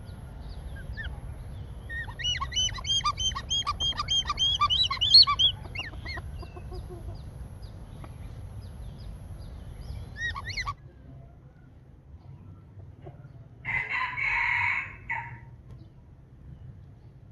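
Hornbill calling in a rapid cackling series of short, sharp notes, about four or five a second, loudest around five seconds in, with scattered single calls after. After a pause, one short harsher call comes about fourteen seconds in.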